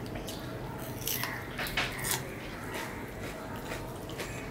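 Close-up eating sounds of rice and curry eaten by hand: soft wet clicks and smacks from mouths and fingers, with a cluster of sharper clicks between about one and two seconds in.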